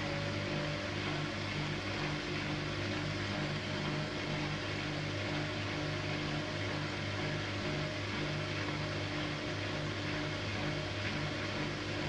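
Siemens Siwamat IQ 716 front-loading washing machine's drum turning with a load of laundry, its motor giving a steady, even hum.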